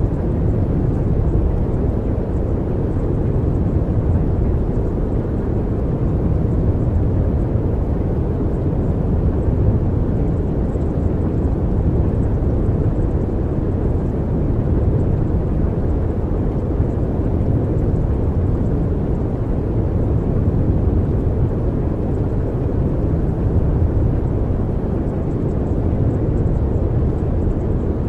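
Steady, low rumbling noise with no pitch or rhythm: the masking track of a subliminal recording, with the affirmations mixed in below hearing.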